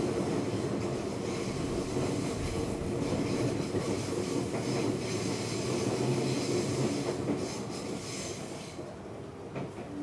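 Seibu 6000 series electric train heard from inside a motor car, running and slowly losing loudness as it slows, with wheel and rail noise, a steady motor tone and a high-pitched whine that cuts off near the end. The uploader reports an abnormal noise from this set under acceleration and braking.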